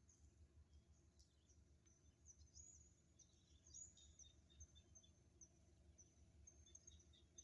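Near silence: a faint outdoor background with small birds chirping, short high calls repeating on and off, over a faint low rumble.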